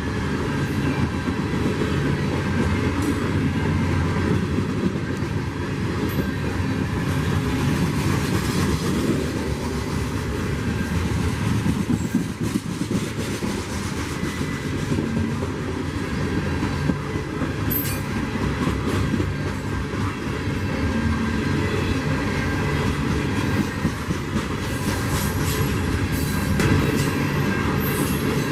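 Freight train rolling past at close range: a steady rumble of the cars with the clickety-clack of wheels over the rails and scattered sharp clicks.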